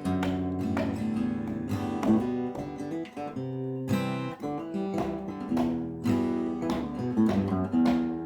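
Acoustic guitar strumming chords, an instrumental passage of a song with no singing.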